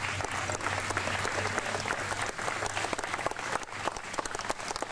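Audience applauding, many hands clapping together, thinning to more scattered claps near the end.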